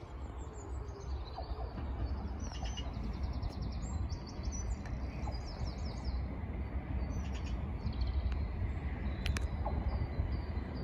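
Small birds singing in quick chirps and rapid trills, over a low rumble that slowly grows louder as the diesel engineering train approaches.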